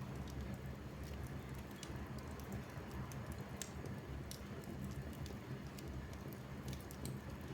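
Fire crackling in a fireplace: irregular sharp snaps and pops over a low, steady rumble.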